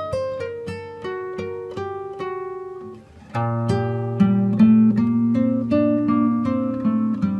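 Background music on a plucked string instrument: a run of single picked notes, then a louder, fuller passage with low held notes coming in a little over three seconds in.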